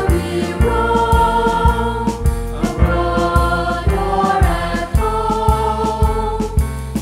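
Mixed choir of teenage boys and girls singing a school hymn in march style, holding long notes over instrumental accompaniment with a steady beat of about two strokes a second.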